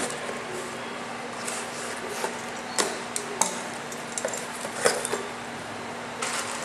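Cardboard box being handled and opened by hand: cardboard rustling and scraping, with several sharp knocks and taps, the loudest a little before the five-second mark.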